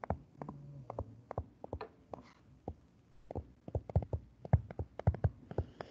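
Stylus writing on a screen: a quick, uneven run of short taps and clicks as the pen strokes out handwritten words.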